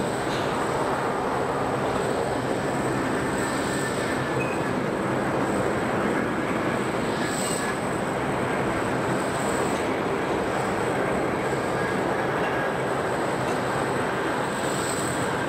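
Steady airport apron noise: a constant rushing rumble with a thin, high whine held steady over it.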